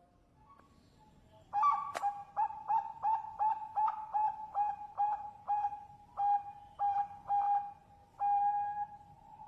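Zebra dove (Bangkok perkutut) cooing: a quick run of short, even coos, about three a second, starting about a second and a half in and ending on one longer drawn-out coo. A single sharp click sounds near the start of the run.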